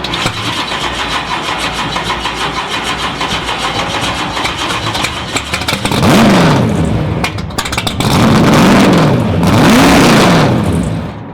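Racing car engine running with a rapid, rattling beat, then blipped three times about six, eight and a half and ten seconds in, each rev rising and falling in pitch.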